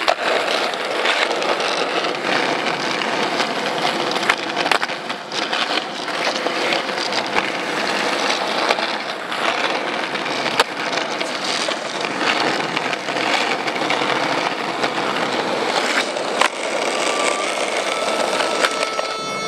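Skateboard wheels rolling on rough asphalt, a steady grinding rumble, with a few sharp clacks of the board striking the ground. Music with held tones comes in near the end.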